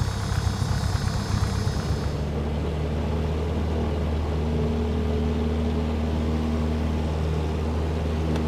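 Single-engine propeller plane's piston engine running steadily, heard from inside the cabin. About two seconds in, the sound shifts from a louder, hissier noise to a steadier, deeper drone.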